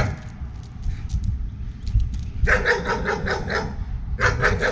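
German Shepherd barking in quick strings at another dog, about four barks a second: a string of barks about two and a half seconds in, another starting near the end. This is dog-reactive barking at the sight of another dog.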